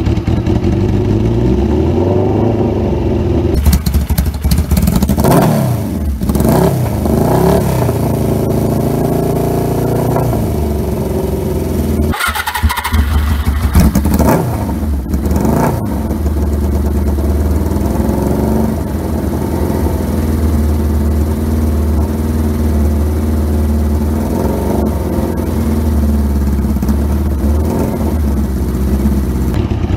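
Suzuki GS550 air-cooled inline-four engine running. It is revved up and down several times by hand in the first half, then settles to a steady idle.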